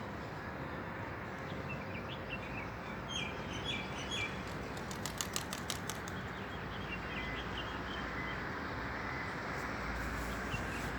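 Small birds chirping in short bursts, with a quick run of sharp clicks about five seconds in, over a steady background hiss.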